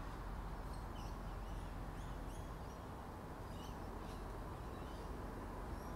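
Small birds chirping, a scatter of short high chirps a few times a second, over a steady low background rumble.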